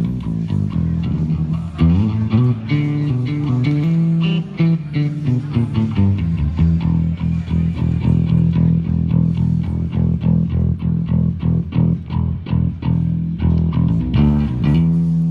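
Amplified electric bass guitar and guitar playing a riff of changing notes during a band's sound check.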